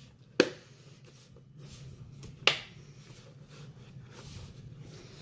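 Toyota RAV4 side-mirror plastic shell snapping into its clips as it is pressed on by hand: two sharp clicks about two seconds apart.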